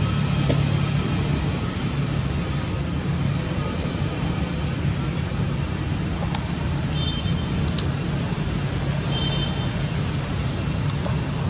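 Steady low hum of engines and road traffic, with a short double click about two-thirds of the way in and a few faint high chirps.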